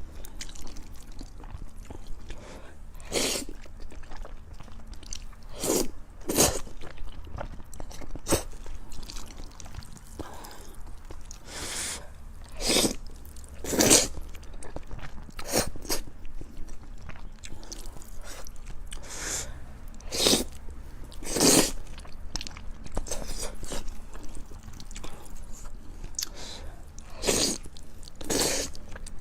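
Close-miked eating: a person biting into and chewing soft dessert, with short wet smacks and bites coming irregularly every second or few.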